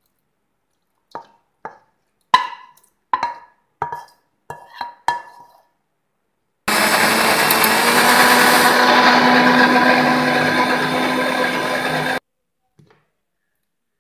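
A string of about eight sharp metal knocks as the cooked tomato mixture is tipped and tapped into a stainless-steel mixer grinder jar. Then the electric mixer grinder runs steadily for about five seconds, pureeing the cooked tomatoes into a paste, and stops suddenly.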